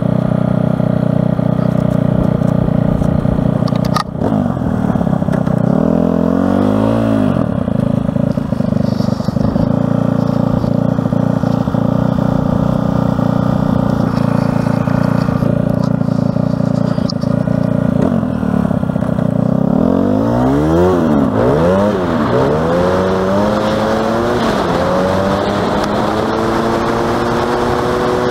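Honda FourTrax ATV's single-cylinder engine running under way, its pitch dropping and rising again twice as the rider eases off and accelerates, and climbing steadily near the end. There is a sharp knock about four seconds in.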